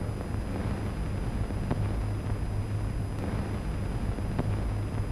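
Steady hiss and low hum of an old 1930s optical film soundtrack, with two faint clicks.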